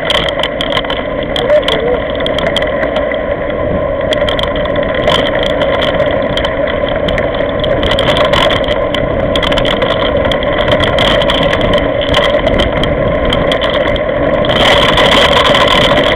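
Mountain bike rolling over loose gravel, heard through a handlebar-mounted camera: a steady rushing noise of tyres and wind with frequent sharp rattles and clicks from stones and the bike. It gets louder near the end.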